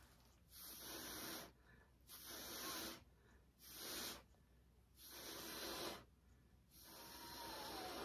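A person blowing by mouth across wet acrylic paint in five airy puffs of breath, each about a second long, with short pauses between.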